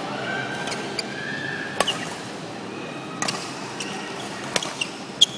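Badminton rackets striking the shuttlecock in a fast doubles rally: five sharp hits a second or so apart, the last the loudest, with short squeaks of shoes on the court floor between them.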